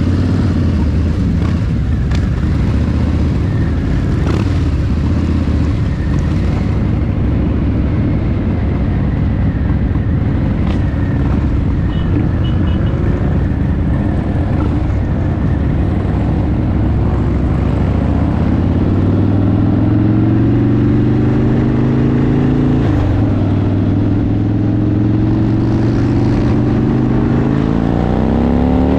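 Harley-Davidson V-twin motorcycle engine running at low speed, then accelerating through the gears: the pitch rises, drops at a gear change about two-thirds of the way through, rises again and drops at another shift at the very end. Wind rush on the microphone throughout.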